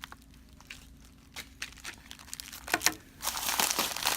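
Packaging being handled during an unboxing, crinkling and rustling in a few short scattered rustles, with a busier burst of crinkling a little under three seconds in.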